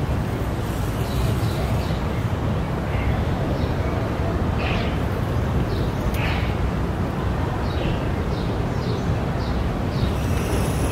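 Town-centre street ambience: a steady low rumble of distant traffic, with short high bird chirps every second or so.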